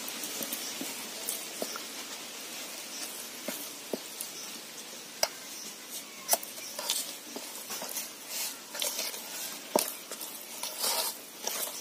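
Thick doi pitha batter of flour and yogurt being mixed in a bowl: soft wet stirring with scattered light clicks and taps, busier near the end, over a steady hiss.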